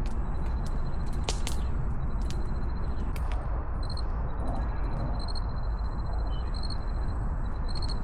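Evening outdoor ambience: a steady low rumble, a faint high-pitched chirping that pulses rapidly and comes and goes, and a few scattered sharp clicks.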